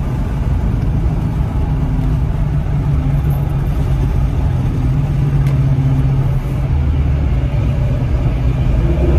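Car driving at a steady highway speed: a continuous low engine drone that holds one pitch, with road noise.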